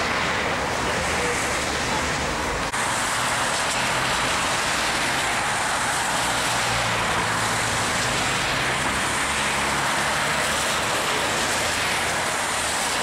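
Steady road traffic noise from a wet city street.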